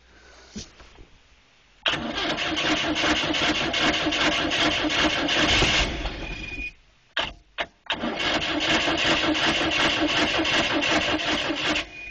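1988 Sea Sprite's four-cylinder sterndrive engine being cranked by its starter in two bursts of about four seconds each, with a short break and a couple of clicks between, without catching. It is a cold start after the boat sat almost a month, and the owner suspects the engine is flooded.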